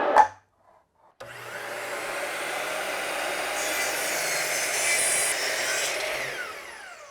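A router starts up, runs and cuts into wood. About a second in a loud steady noise sets in, and after about five seconds the motor winds down, its whine falling in pitch as it coasts to a stop. A sharp click comes just before it starts.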